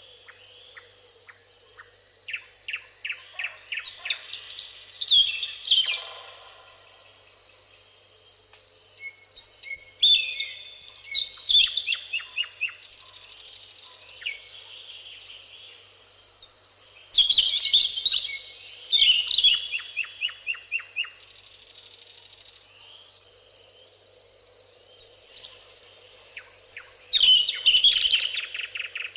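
Songbirds singing in a meadow chorus, with bursts of trilled and chirped phrases every few seconds over a steady high tone, and two short hissing buzzes in between.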